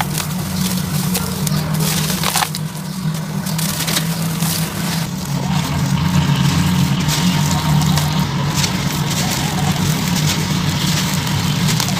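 Wet sand-cement lumps crushed and crumbled by hand into water: repeated crunching and crackling as the lumps break, with grit pouring and splashing into the water. A steady low hum runs underneath.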